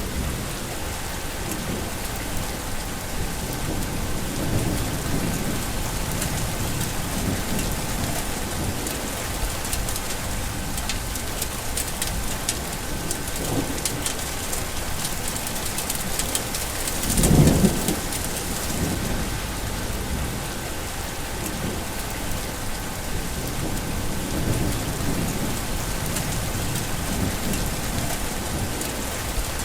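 Steady rain with wind and low rumbles of thunder. The loudest rumble comes a little past halfway.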